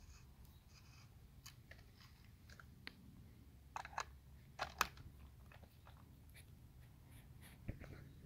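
1-inch auger bit with pilot drill boring into wood: faint crunching and crackling of the cutting over a low steady hum, with a few sharper cracks around the middle and one near the end.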